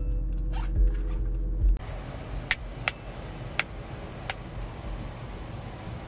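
A passenger fastening a car seatbelt: the webbing sliding out of the retractor, a few low thumps, then four sharp separate clicks. A steady cabin hum cuts off abruptly just under two seconds in.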